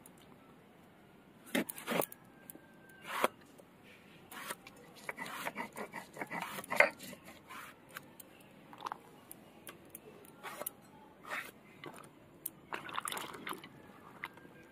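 A green gourd is cut into chunks on a boti, a fixed upright floor blade: a run of irregular crisp cuts and snaps through the firm flesh. There is a busy stretch of cutting a little before the middle, where the loudest cut falls.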